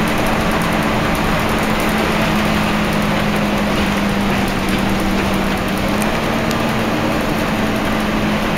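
Interior sound of a Scania L113CRL single-deck bus under way: its 11-litre six-cylinder diesel engine runs with a steady low hum over continuous road and body noise. The hum shifts slightly a little after halfway.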